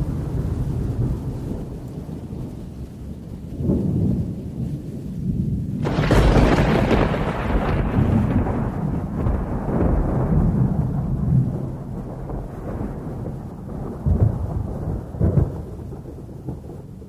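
Thunder rumbling low and continuously, with a sudden loud crack about six seconds in that rolls away over several seconds, and smaller peals near the end.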